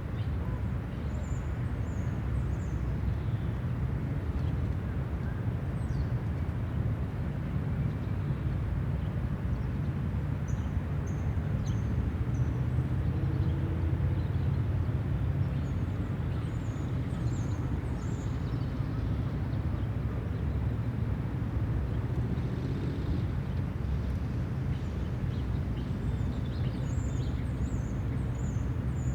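Outdoor city-park ambience: a steady low rumble of distant traffic, with small birds chirping in short high bursts every few seconds.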